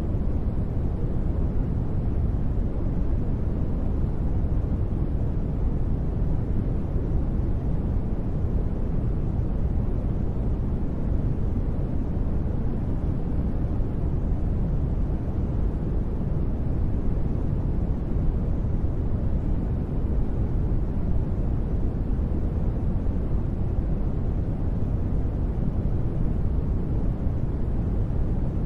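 Continuous generated noise for sleep, sold as white noise but deep and low, closer to a soft rumbling rush than a bright hiss. It holds perfectly steady, with no changes or sudden sounds.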